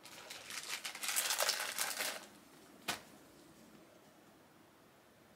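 Rustling and crinkling handling noise made of many quick little ticks, lasting about two seconds, followed by a single sharp click about three seconds in.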